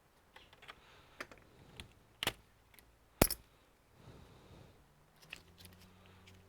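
Small metallic clicks and taps of a screwdriver and loose screws while a laptop's screws are taken out, with the sharpest click about three seconds in. A faint low hum comes in near the end.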